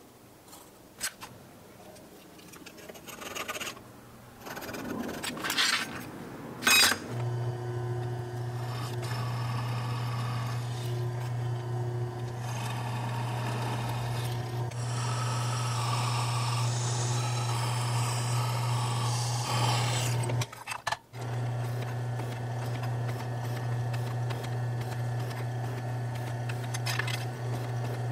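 Light pencil scratching and a few knocks at first. About seven seconds in, a benchtop drill press starts and runs with a steady hum as its bit cuts holes through a mild steel knife blank. It stops briefly about two-thirds of the way through, then runs again.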